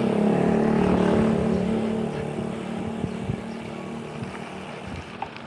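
A motor vehicle's engine running close by, a steady note that is loudest in the first two seconds and then fades away.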